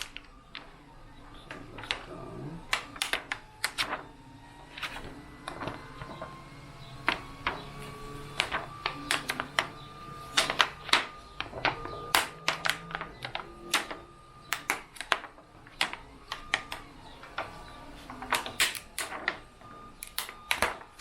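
Irregular sharp clicks and taps of thin plastic being handled: transparency film and a 3D-printed headband being fitted together into a face shield.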